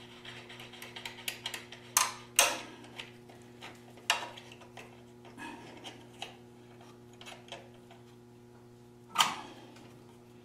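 Metal clicks and knocks of a C clamp being fitted and screwed down, clamping an engine's base to a wooden bench. A scatter of small ticks with four sharper knocks, the loudest near the end, over a steady low hum.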